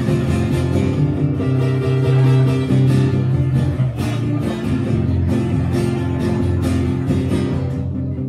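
Two acoustic guitars played together live, with chords strummed in a steady rhythm.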